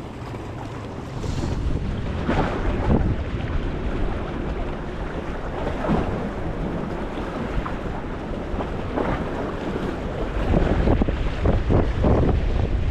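Strong wind buffeting the microphone, with waves washing against the jetty rocks; the wind gusts harder about ten seconds in.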